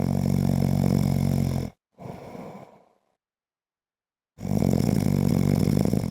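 A man snoring: two loud, rattling snores about four seconds apart, each lasting under two seconds. A quieter breath comes after the first.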